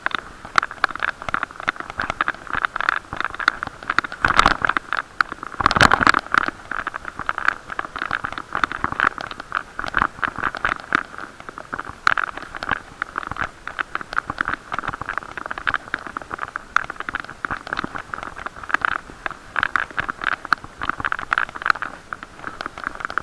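Bicycle riding noise heard through an action camera's waterproof case: continuous rattling and scraping, with two heavier jolts about four and six seconds in.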